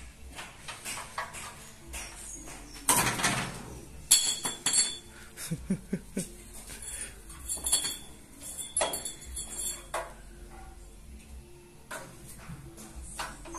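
Metal clinks and knocks as the rope-start pulley of a small diesel engine is handled, with a short scraping rush about three seconds in; the engine is not running.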